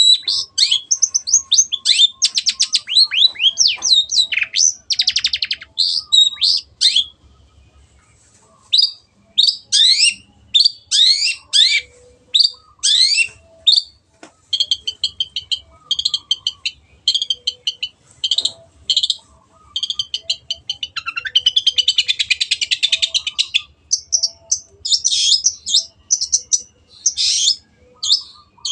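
Long-tailed shrike (cendet) singing a fast, varied song of chirps, rapid trills and quick falling notes. There is a short pause about seven seconds in, and a harsh, scratchy chatter about three-quarters of the way through.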